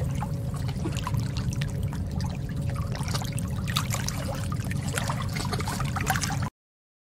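Underwater sound of the sea: a steady low rumble with bubbling and scattered crackles. It cuts off suddenly about six and a half seconds in.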